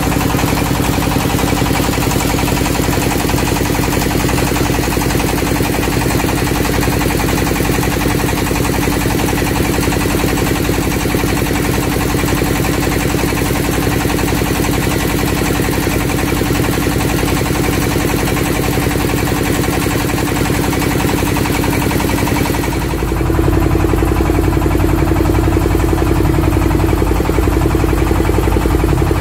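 A boat's engine runs steadily under way with a low rumble and a steady hum, along with a hiss of water and air. About three-quarters of the way through, the hiss drops away and the low rumble grows louder.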